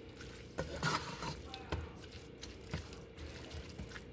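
A utensil stirring and tossing pasta, vegetables and chicken in a pan, with irregular clinks and scrapes against the pan over a faint steady hum.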